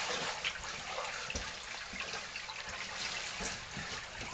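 Water trickling steadily through a cave passage.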